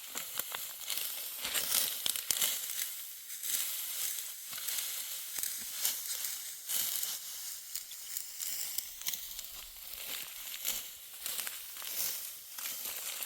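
Dry wheat stalks crackling and rustling as they are reaped by hand with a sickle, in irregular crunchy strokes.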